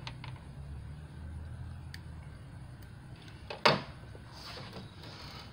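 A single sharp snip about three and a half seconds in, cutters cutting heat-shrink tubing to length, followed by a brief rustle of handling, over a steady low hum.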